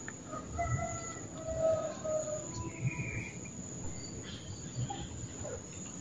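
A steady high-pitched insect trill, like a cricket or cicada, runs throughout, with a few short, faint bird notes scattered through the first half.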